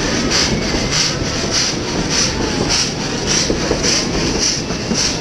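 Narrow-gauge steam train running: the locomotive chuffing evenly, a little under two beats a second, over a steady rumble of the carriage wheels on the track.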